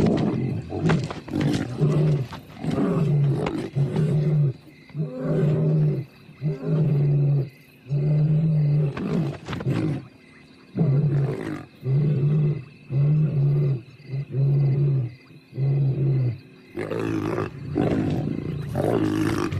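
Lions growling and snarling in a face-off between two males and a cornered young lioness. A run of deep growls comes about once a second through most of it, with harsher snarls at the start and near the end.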